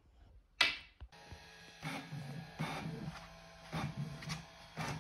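Inkjet printer starting up with a sharp clack about half a second in, then running with a steady low hum broken by repeated short mechanical passes as it feeds paper from the rear slot.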